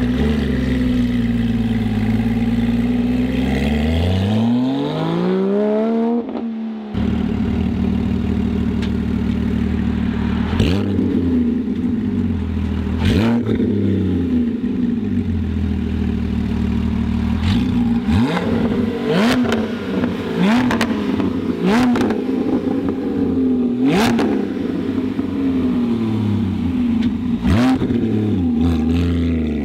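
Porsche 718 Spyder's 4.0-litre flat-six through a Kline Innovation Inconel full exhaust with 200-cell catalytic converters. First the revs dip and then climb hard; after a cut it idles while the throttle is blipped about eight times, each rev rising and dropping quickly, with sharp crackles as the revs fall.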